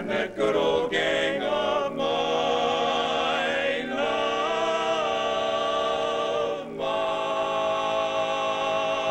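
Barbershop quartet singing a cappella in four-part close harmony, with bass, baritone, lead and tenor voices. A quick run of short notes opens it, then long held chords follow, changing about four seconds in and again after six seconds.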